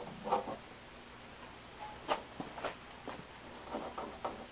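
Light knocks and clicks from a homemade pendulum-and-lever oscillator fitted with a door-closer spring: a few scattered knocks, then near the end an even clicking, about four a second, as the rig oscillates.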